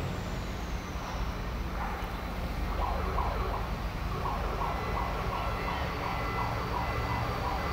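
Steady low rumble of heavy port machinery, joined about two seconds in by a rapidly pulsing warning alarm.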